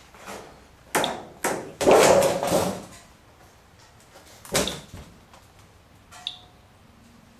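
A thin sheet of metal rattling and scraping as it is handled and laid down, loudest about two seconds in, then a Geiger counter set down on it with a knock. The counter gives a couple of short high chirps, each one a detected count.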